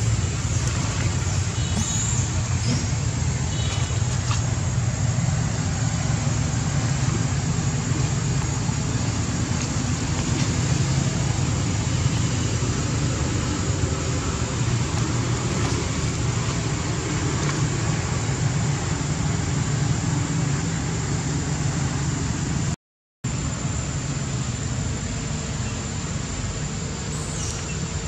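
Steady low rumbling background noise with an even hiss above it. It cuts out completely for a moment about 23 seconds in.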